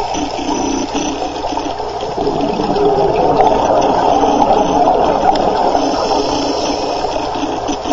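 Heard underwater, the rushing, gurgling noise of scuba divers' exhaled bubbles streaming from their regulators. It swells louder through the middle.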